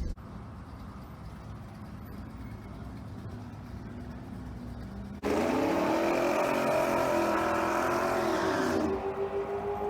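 Twin-turbocharged 351 Windsor V8 in a Ford Ranger drag truck running quietly for about five seconds. Then it comes suddenly to full throttle and pulls hard for about three and a half seconds, its pitch climbing and then falling away near the end.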